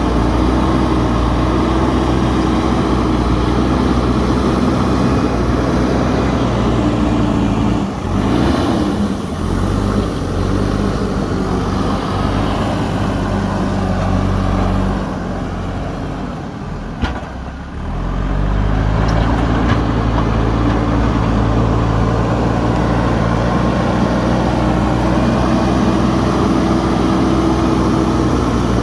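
JCB 3DX backhoe loader's diesel engine running hard while it digs, its pitch dropping about eight seconds in and again for a few seconds in the middle before climbing back as it takes load. A single sharp knock sounds a little past the middle.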